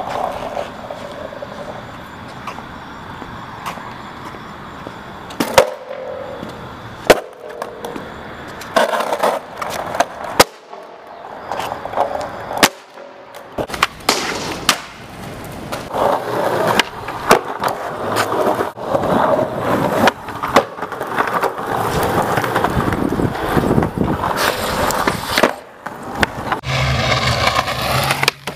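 Skateboard wheels rolling on concrete and asphalt, broken again and again by sharp wooden clacks of the board popping, hitting and landing.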